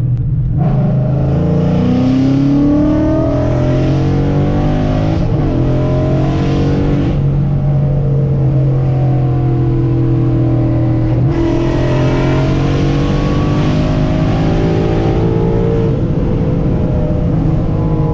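2011 Ford Mustang GT's 5.0-litre V8 pulling hard under full acceleration through a manual gearbox, the revs climbing, dropping at gear changes about five and about eleven seconds in, then climbing again.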